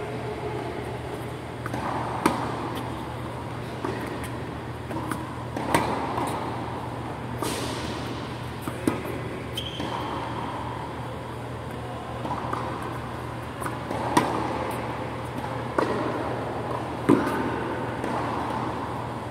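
A tennis rally: the ball hit by rackets and bouncing on the court, sharp pops every one to three seconds, each echoing briefly around the hall. A steady low hum runs underneath, fitting the hall's large wall fans.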